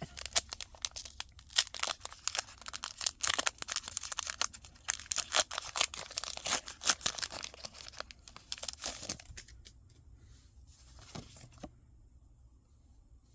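A foil booster-pack wrapper crinkling and being torn open by hand: a dense run of crackles for about nine seconds, then a few soft rustles.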